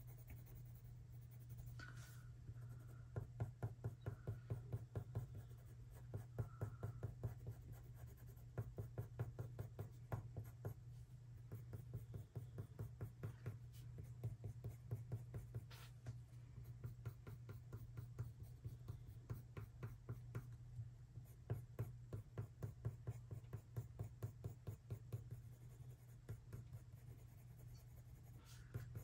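White Polychromos colored pencil stroking on textured watercolor paper in quick runs of about four or five strokes a second, pressed hard so the point almost scrapes off the color beneath to push a highlight. A low steady hum lies under it.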